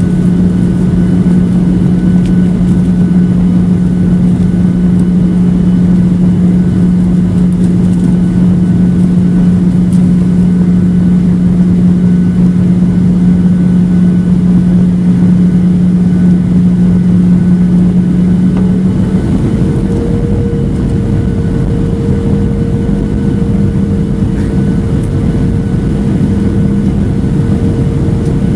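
Cabin noise of a Boeing 737-700 on approach, heard beside the wing: a steady rushing drone of airflow and CFM56-7B turbofan engines with a strong low hum. A little over halfway the hum gives way to a higher steady note and the noise drops slightly.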